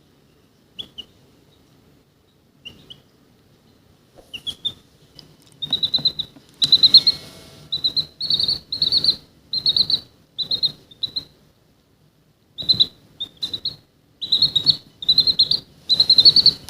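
Chick peeping: a few scattered peeps at first, then from about five seconds in, loud rapid peeps in runs of several at a time.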